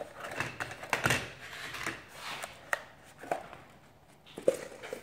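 Handling noises: a stiff paper cone being worked around a glass bottle and moved on a stone countertop, giving scattered taps, knocks and paper rustles at irregular intervals.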